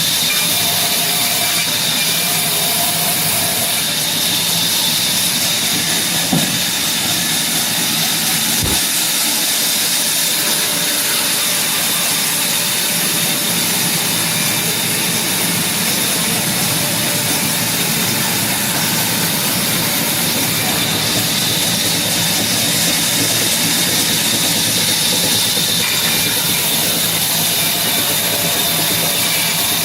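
Power saw running steadily while cutting through heavy wood, a constant loud mechanical hiss with a steady high tone.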